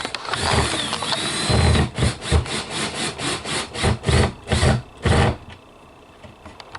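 Power drill driving screws into the wall to mount a shelf: the motor whine rises and falls in a run of short spurts with rattling clicks, then stops about five seconds in.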